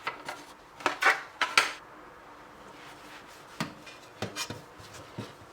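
Fridge trays and parts being handled as they are dried: hard knocks and clatters, loudest in a cluster about one to two seconds in, then a few scattered lighter taps.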